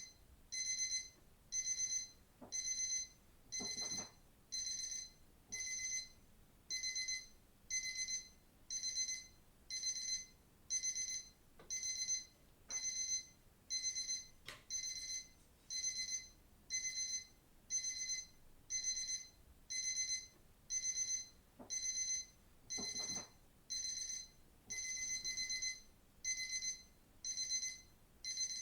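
Digital watch alarm beeping: short bursts of high-pitched electronic beeps repeating evenly, a little under once a second.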